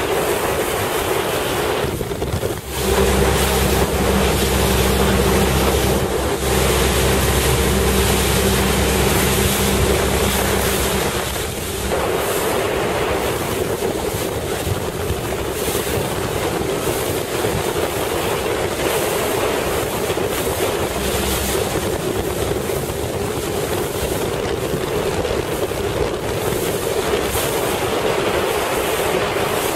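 Small boat under way on open water: a boat engine running steadily, with wind buffeting the microphone and water rushing past the hull. The level dips briefly twice, near the start and about twelve seconds in.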